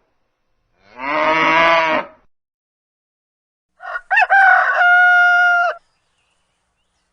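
A cow mooing once, then about four seconds in a rooster crowing once, a rising cock-a-doodle-doo ending in a long held note.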